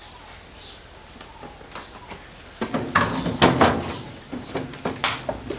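A couple of quiet seconds, then a run of knocks and clatter as the top cover of a GE 10 kg washing machine's cabinet is handled, with one sharp knock near the end.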